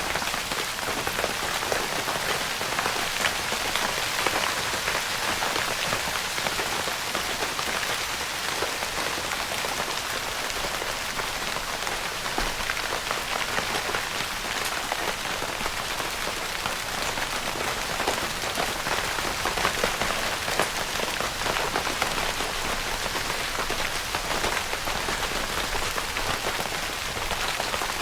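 Steady rain pattering on a tent's fabric roof, a dense even hiss of many fine drop taps.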